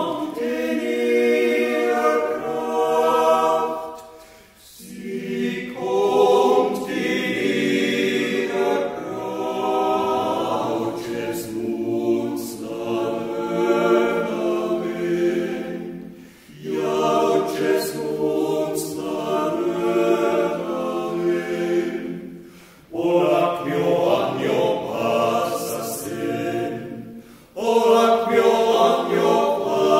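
Swiss yodel club men's choir singing a cappella, in several voices. It sings in long phrases broken by four short pauses for breath.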